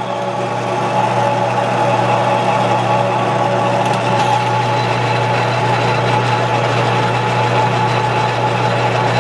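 Metal lathe running steadily, its motor and gearing humming, while a twist drill in the tailstock chuck bores into the end of a spinning wooden handle blank.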